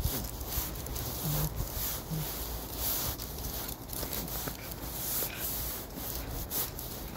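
Hurried footsteps of a walker and a small dog going uphill through dry fallen leaves: a continuous crunching rustle broken by irregular crackles.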